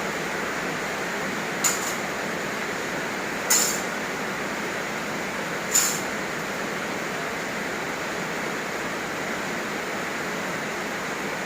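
Steady hiss of heavy rain, with three short clinks, like glass or metal knocked together, about two seconds apart in the first half.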